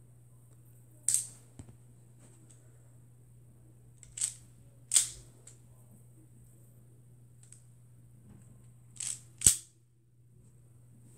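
Sharp plastic snaps from the mechanism of a home-built Lego Technic toy pistol being worked by hand: five clicks at uneven intervals, two of them in quick pairs, the loudest near the end.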